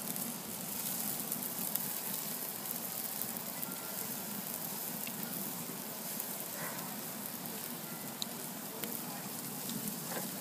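Ribeye steaks sizzling steadily on a wire grate over a wood fire, with a few faint crackles from the burning logs.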